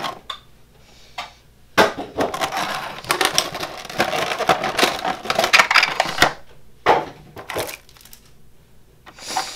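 Clear plastic packaging tray crinkling and crackling as hands flex it to work a model airliner free: a few seconds of continuous crackle, then a few short bursts near the end.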